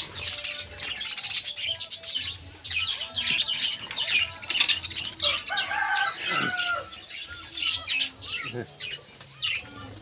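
A flock of budgerigars chattering in rapid high chirps, with wings flapping as the birds fly in to feed.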